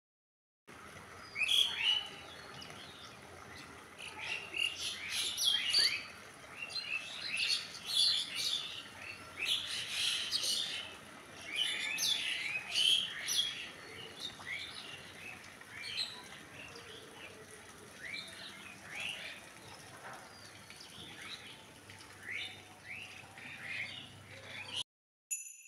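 Several small birds chirping: quick, short, high calls in busy clusters that thin out about halfway through, over a faint steady hiss.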